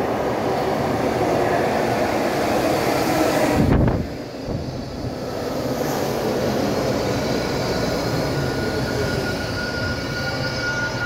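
Baltimore Metro subway train pulling into the station past the platform, with a steady rumble and rush from the passing cars. A low thud comes about four seconds in, and a thin steady squeal starts near the end as the train slows.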